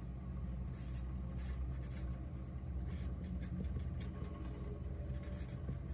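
Felt-tip marker pen stroking across paper in a series of short strokes as a box is drawn and a word written, over a low steady hum.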